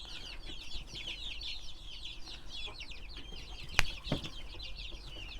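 A flock of young chickens peeping and chirping continuously, many high calls overlapping. A single sharp click sounds a little under four seconds in, with a smaller knock just after.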